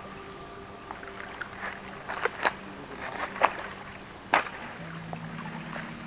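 Dry dead branches and driftwood cracking and snapping as someone pushes through them, four sharp snaps in the middle, over a steady low motor hum whose pitch shifts slightly near the end.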